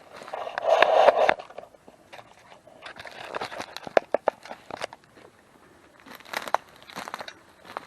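Footsteps crunching and crackling through dry leaves, twigs and undergrowth, with a louder rustling brush through vegetation in the first second or so.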